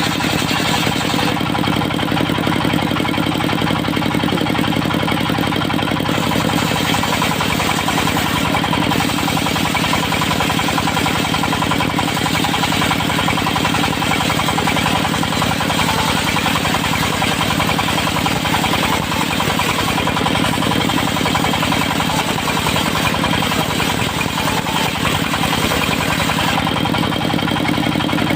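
Diesel engine of a portable circular sawmill running steadily. Its sound thickens with an added hum from about seven seconds in until near the end.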